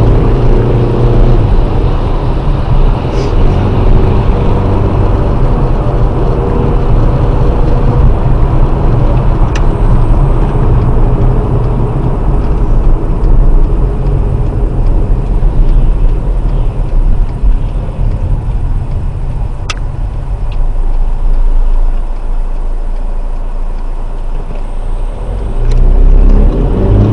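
Car interior driving noise picked up by a dashcam: steady engine and road rumble, with a pitched engine note coming up near the start and again just before the end. A few light clicks.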